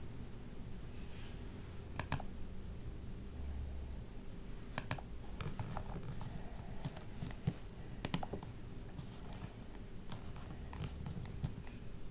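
Scattered clicks of a Microsoft Bluetooth mouse's buttons, three of them sharper than the rest, over a faint steady hum.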